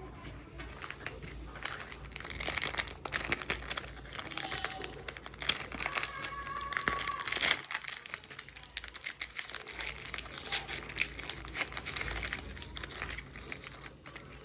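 Phone box packaging being handled and torn open: a dense run of crinkling and tearing, easing off briefly about eight seconds in.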